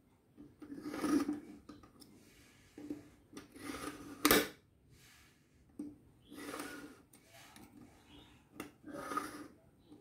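Steel kitchen knife blade drawn repeatedly through a pull-through knife sharpener's sharpening wheels: about five scraping strokes, each under a second. A sharp click about four seconds in is the loudest sound.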